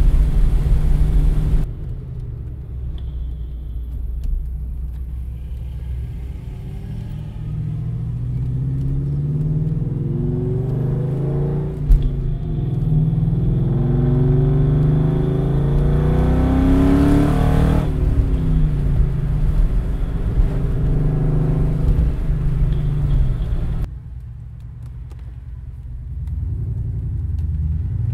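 2004 Ford Mustang GT's 4.6-litre two-valve V8 through a full aftermarket exhaust, heard from inside the cabin while driving. A loud pull drops away about two seconds in, then the engine note climbs steadily under throttle, falls off sharply about two thirds of the way through, sinks to a quieter stretch, and starts rising again near the end.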